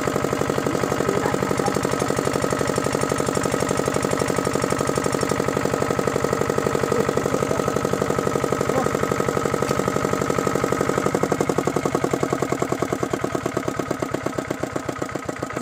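Kirloskar single-cylinder diesel engine driving a water pump, running with a steady, even chug. About eleven seconds in the separate firing beats stand out more and the sound grows quieter toward the end.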